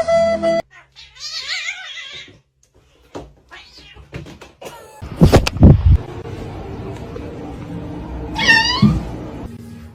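A cat meowing twice: a drawn-out, wavering meow about a second in and a shorter one near the end. Knocks and a few loud thumps fall between them.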